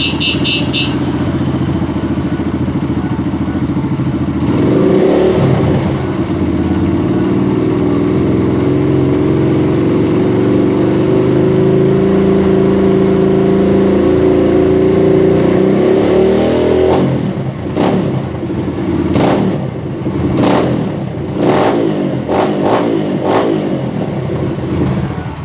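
Kawasaki KLX150BF single-cylinder four-stroke engine running through an FMF F4.1 full exhaust. It idles steadily, then is brought up to higher revs about four seconds in and held there. From about seventeen seconds in it is given a series of about eight quick throttle blips.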